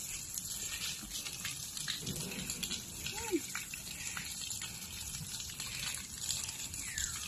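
Water gushing and spraying steadily from the top of a tall stainless-steel water tank, splashing down onto plants, as a continuous hiss.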